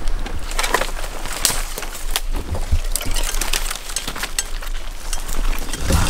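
Footsteps and rustling through undergrowth, with leaves and twigs brushing against the camera in irregular crackles over a low rumble of camera handling.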